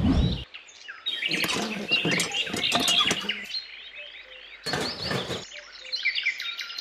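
Birds chirping: many quick calls that glide up and down. There is a short, heavy low thump at the very start and a brief burst of noise about five seconds in.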